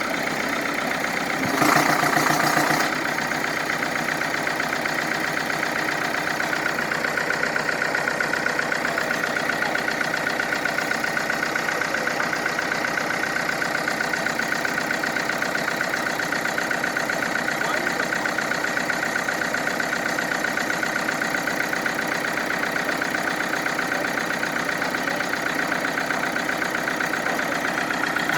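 Engine of heavy equipment running steadily at a fairly constant speed, with a brief louder surge about two seconds in.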